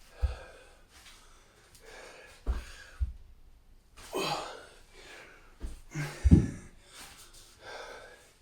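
A person breathing hard through an exercise set, with forceful breaths about every two seconds. Short dull thuds fall between the breaths, the loudest about six seconds in.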